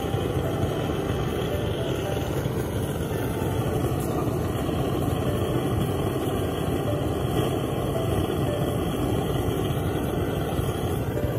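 Handheld gas torch burner running with a steady rushing flame, held against firewood to light it.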